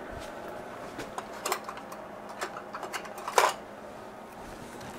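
Small hard objects clicking and clattering while someone looks for a small adjustment tool, with a handful of sharp knocks, the loudest about three and a half seconds in. A steady low hum runs underneath.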